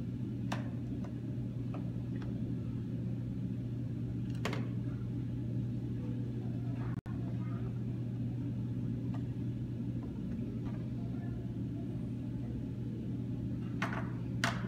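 A few light clicks and clacks of plastic toy cookware being handled at a play kitchen: one near the start, one midway and two near the end. Underneath runs a steady low hum.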